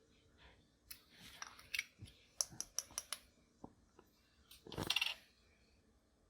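Clear slime being handled and pressed with makeup mixed into it: a run of sharp sticky clicks and snaps, then a louder squelch a little under five seconds in.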